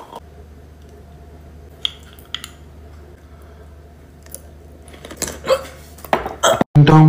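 Quiet room with a low hum, broken by a few light clicks from a metal spoon and drinking glass and then mouth and chewing noises as a spoonful is eaten. Beatbox-style backing music cuts back in loudly near the end.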